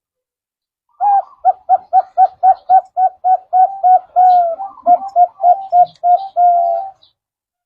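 Zebra dove (perkutut) cooing: after about a second of quiet, a fast run of short, clipped coo notes, about three to four a second, with a few longer drawn-out notes mixed in toward the end, stopping about a second before the end.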